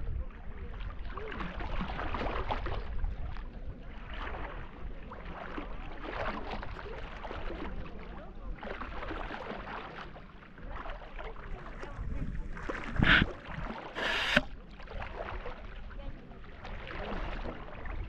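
Water sloshing and lapping around a person floating on their back, swelling and easing every second or two, with two short, louder splashes about two-thirds of the way through.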